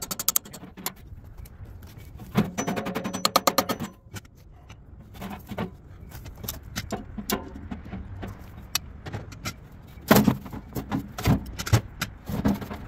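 Galvanized sheet-metal blower housing of a rooftop AC unit being hammered and handled during scrapping: scattered metal clanks and knocks, a fast rattling run of about a second and a half near the start, and a cluster of sharp hammer blows near the end.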